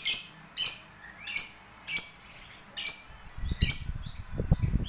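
Lovebird giving short, shrill chirps in quick succession, roughly one every half second to second, turning into quicker chattering notes near the end. Low rumbling knocks join in from about three and a half seconds in.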